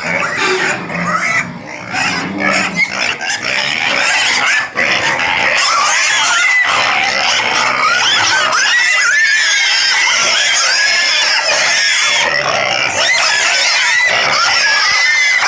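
Pigs grunting and squealing, several at once. From about five seconds in the squealing becomes loud and continuous, high overlapping squeals with no break.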